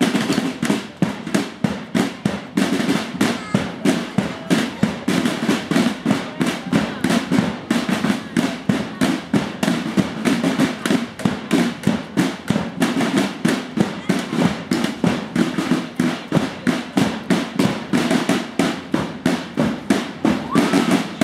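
Marching drum corps of snare drums and a bass drum playing a steady, fast marching beat, with voices underneath.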